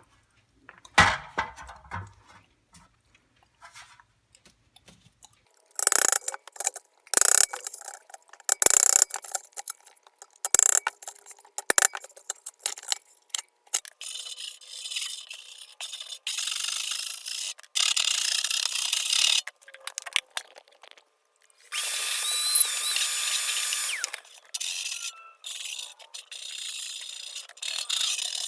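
Wire brush scouring rust and paint off a steel toolbox: high-pitched scratchy scraping in repeated stretches that stop and start abruptly, after a few knocks at the start.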